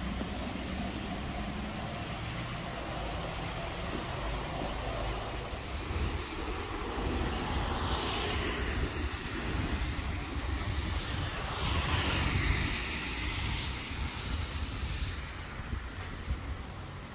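Passing road traffic over a steady low rumble. Vehicles swell and fade twice, the louder pass about twelve seconds in.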